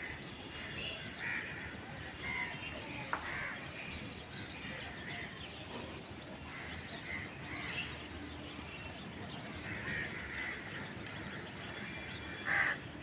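Crows cawing, short calls repeating every second or so, with the loudest calls near the end, over a steady background hiss.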